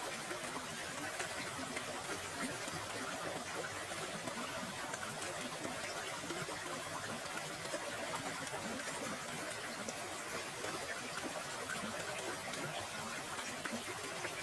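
Waterfall ambience: a steady, even rush of falling water.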